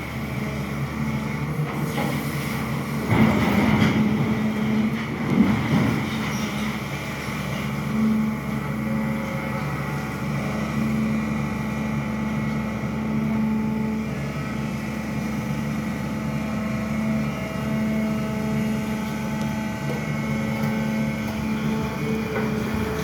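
SANY excavator's diesel engine running steadily, with a few louder knocks about three to five seconds in.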